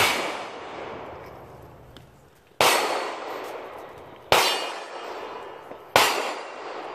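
Four gunshots at a shooting range, irregularly spaced about one and a half to two and a half seconds apart, each sharp crack echoing and fading away over a second or two.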